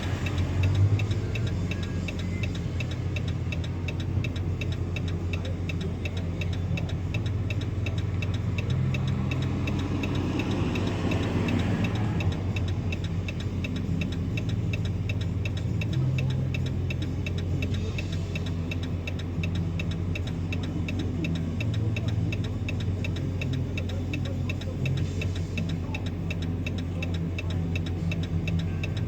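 Car engine idling with the even, regular ticking of its indicator flasher.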